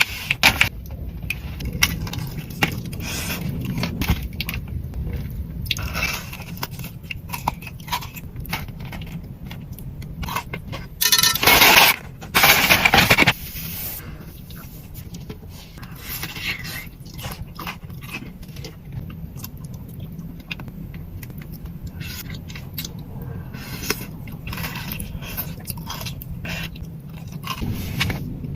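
Close-up eating sounds: a thick Dubai chocolate bar with a crunchy pistachio and kataifi filling being bitten and chewed, with many small crunches and crackles. About eleven seconds in come two loud, noisy bursts, each lasting about a second.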